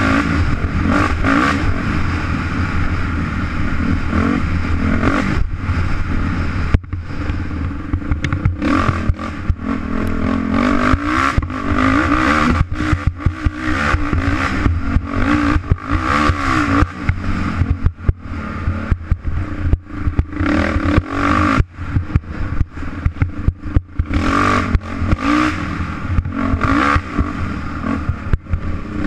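Dirt bike engine revving hard as it is ridden along a trail. The throttle rises and falls, and is shut off briefly several times, under a steady rough rattle from riding over the ground.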